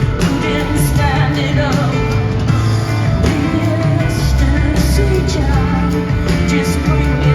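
Live concert music: a woman singing over a band with bass and drums.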